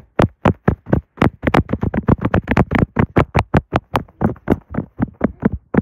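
A rapid run of sharp, loud knocks, about four to five a second, that stops near the end.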